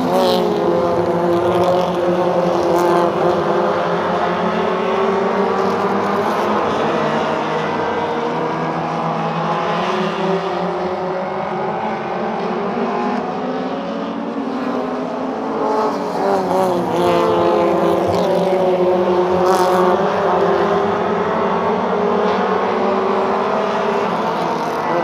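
A pack of stadium stock race cars racing around a short oval. Several engines overlap, their pitch dropping and climbing again over and over as the cars lap.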